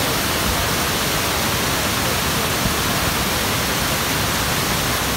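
A steady, loud rushing noise with no clear pitch.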